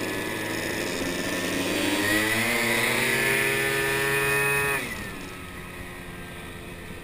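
Moped scooter's small engine under way, rising in pitch as it accelerates from about two seconds in, holding high, then dropping sharply about five seconds in as the throttle is closed, leaving a quieter coast.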